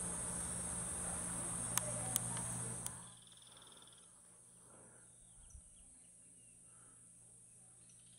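Steady high-pitched insect chorus over a low hum, with a few sharp clicks. About three seconds in it drops to a much fainter level and stays faint.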